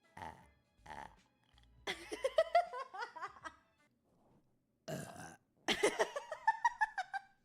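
A person burping on purpose: two long, drawn-out burps of about a second and a half each, with a few short sounds before them.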